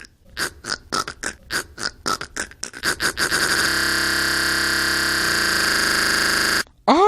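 A man making a vocal sound effect: quick rhythmic grunting pulses that speed up and run together into a steady buzzing drone, which cuts off suddenly near the end.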